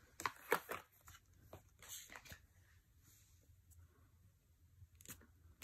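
Tarot cards being handled and flipped: a few soft card clicks and slides, in short clusters near the start, around two seconds in, and once about five seconds in.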